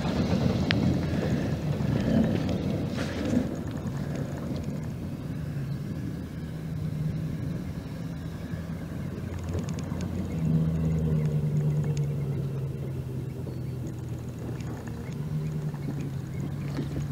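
A 5.3-litre V8 gas engine in a GMC Sierra pickup running, with a noisy rumble over the first few seconds. The engine note steadies, grows louder and slightly higher about ten seconds in, and eases back after a few seconds.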